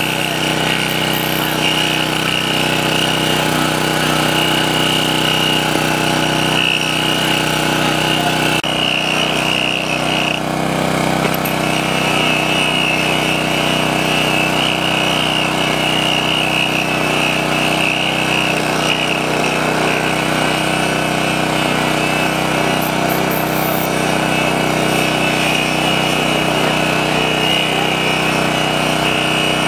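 Rail grinder running steadily, grinding down a fresh thermite weld on the rail. There is a brief change in the sound about eight and a half seconds in.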